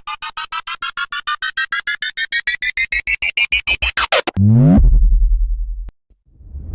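Electronic synthesizer sound effect: a rapid pulsing beep, about ten pulses a second, rising steadily in pitch for about four seconds. It then drops in a quick downward sweep into a low steady buzz that cuts off suddenly, followed by a single click.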